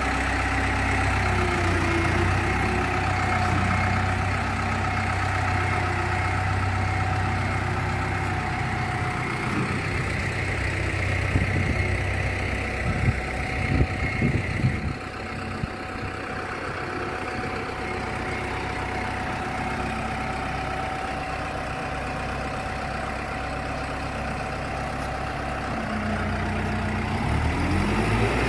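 An engine running steadily at low speed, with a cluster of sharp knocks a little after the middle. Near the end its pitch rises as it speeds up.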